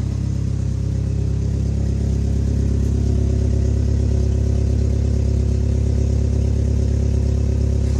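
Toyota truck engine running steadily, getting a little louder about a second in. Its exhaust is leaking at the patched catalytic converter, heard as a fast puffing over the engine note.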